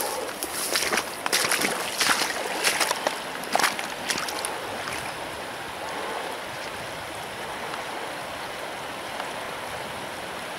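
Steady rushing of a shallow taiga river, with irregular footsteps over the first four seconds or so that then stop, leaving only the water.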